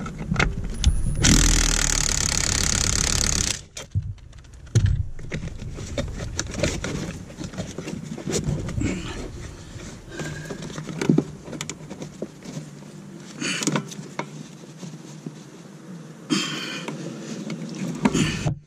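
Hand-work noise under a car dashboard: scattered clicks, knocks and rustling as a hand tool and the blower fan housing are handled. A loud hissing rush starts about a second in and lasts a couple of seconds, and shorter ones come near the end.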